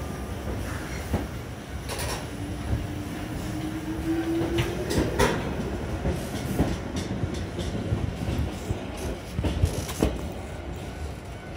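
Hankyu 3000 series electric train pulling out of the station and gathering speed. A steady low rumble of wheels on rail, with sharp clicks as the wheels pass over the rail joints, and a rising whine between about two and five seconds in.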